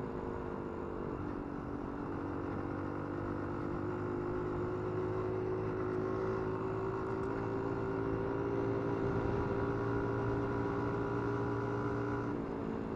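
Small single-cylinder engine of a Dax mini motorcycle running steadily under way, its note creeping slightly higher, with a short break in the note near the end as the throttle eases.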